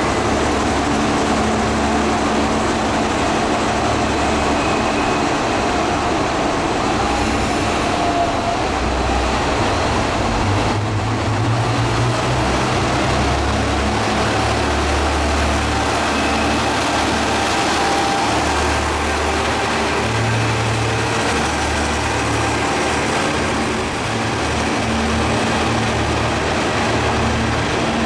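Kanto Railway KiHa diesel railcars' engines running at a station: a steady, loud low rumble whose deep note swells and shifts several times.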